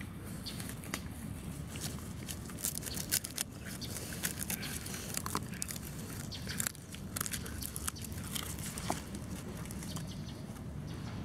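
Labrador puppies chewing and tugging at dry grass right by the microphone: irregular crackling, tearing and rustling of stems over a steady low rumble.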